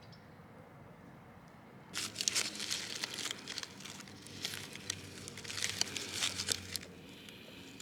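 Wrapping material crinkling and crumpling as it is handled, in irregular bursts starting about two seconds in and lasting some five seconds.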